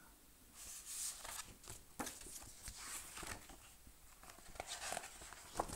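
Pages of a paperback book being handled and turned: a run of soft, irregular paper rustles and small ticks.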